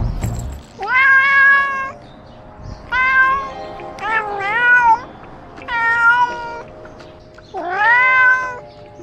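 Domestic cat meowing: a run of long meows, each about a second, rising in pitch at the start, with short gaps between them, over quiet background music.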